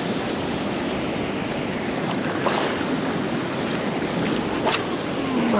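Shallow surf washing over a reef in a steady rush of water noise, with a few brief small splashes.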